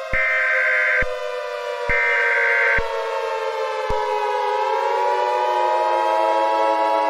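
Two roughly one-second bursts of Emergency Alert System SAME header data tones, the end of the three-burst header, over a civil defense siren slowly winding down in pitch. About four and a half seconds in, a second siren tone starts winding up, crossing the falling one.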